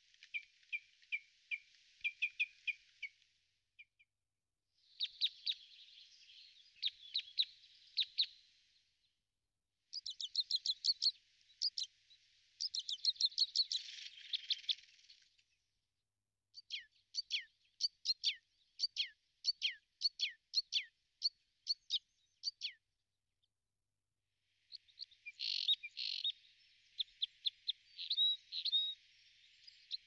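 Small songbirds singing and chirping in runs of rapid high notes, many sliding downward, in about five phrases a few seconds long with short silences between them.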